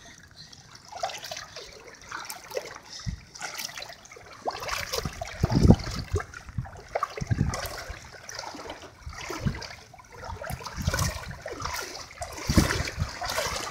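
Floodwater sloshing and splashing around the legs of a person wading through it, in uneven surges with each step.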